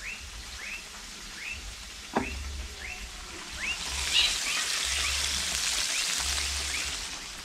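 Floured bangamary fish sizzling as they fry in a pan of hot oil, the hiss swelling about four seconds in as more fish go into the oil. A single knock comes about two seconds in, and a faint short rising chirp repeats about every 0.7 s in the background.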